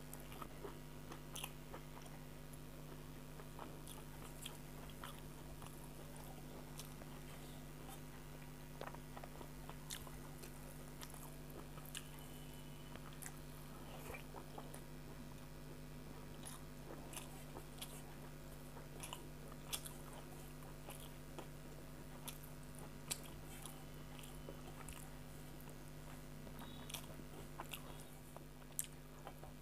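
Quiet chewing and crunching of a person eating dry, spicy fried small fish (chuno mach) with rice by hand, with scattered soft clicks over a steady low hum.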